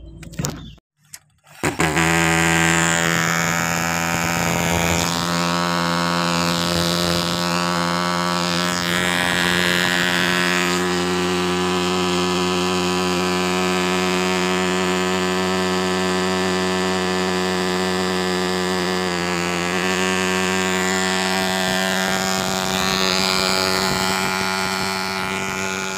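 Thermal fogging machine's pulse-jet engine running: a loud, steady buzzing drone that starts abruptly about two seconds in and holds an even pitch.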